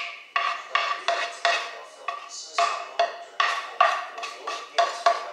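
Wooden spatula knocking and scraping against a nonstick frying pan as diced ham is worked out of it: a steady run of sharp clacks with a short ring, about three a second, with a brief pause about two seconds in.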